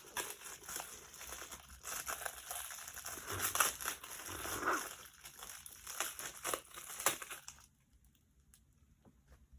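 Packaging being crinkled and rustled by hand, an irregular run of crackles and small ticks that stops about two seconds before the end.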